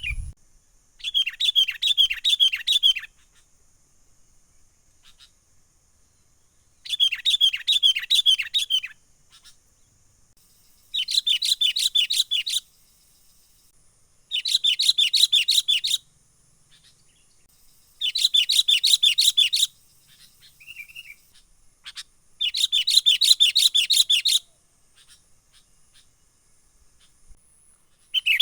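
Sooty-headed bulbul (kutilang) calling in repeated bursts of rapid chattering notes, each burst lasting about one and a half to two seconds, six times with short pauses between: a lure call for trapping bulbuls. A faint steady high whine runs behind.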